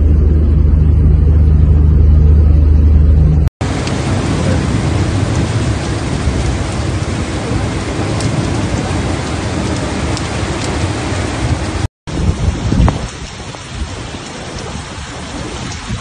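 A loud low steady rumble for the first few seconds, then, after an abrupt cut, heavy rain pouring down in an even hiss. After a second cut near the end, gusts of wind and rain rise and fall unevenly.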